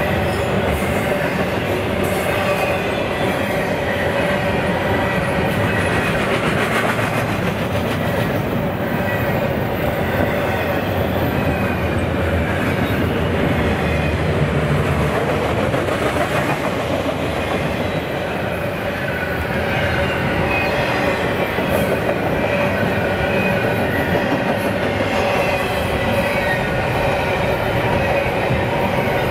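Train rolling past, loud and steady: wheels rumbling and clattering on the rails, with a steady ringing tone and faint high wheel squeal over the top.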